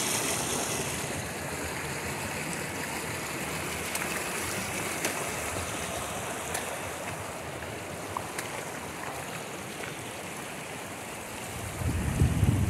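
Steady rush of flowing water from the mountain stream and waterfalls. Near the end, low gusty buffeting of wind on the microphone comes in over it.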